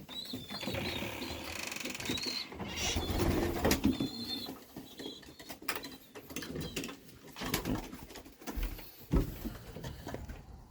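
Racing pigeons cooing in the loft, with scattered knocks and scuffs of birds moving about.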